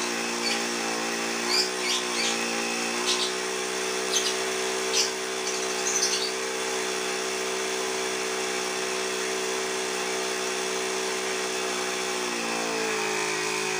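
Mini car-tyre compressor motor running steadily to supply an airbrush, a steady hum with a few short high-pitched hisses over it in the first half. Its pitch dips slightly near the end.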